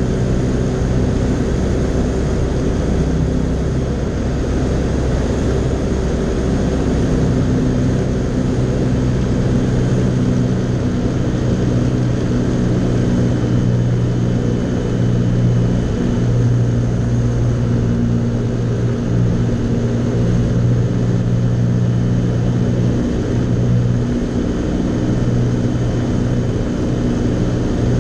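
Fly Synthesis Storch S ultralight's engine and propeller running steadily in cruise, heard from inside the cockpit as an even drone over a hiss of rushing air.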